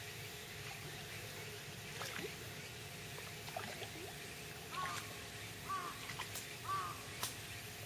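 A bird calling three times in short arched notes in the second half, over a low steady background, with a few sharp clicks.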